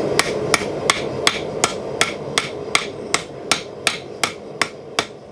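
Blacksmith's hammer striking red-hot steel on the anvil face in a steady rhythm, about fourteen blows at a little under three a second, each with a short ring.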